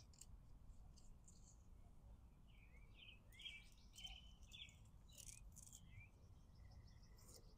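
Near silence outdoors, with faint bird chirps in the background: a run of short, sliding calls from about two and a half to six seconds in.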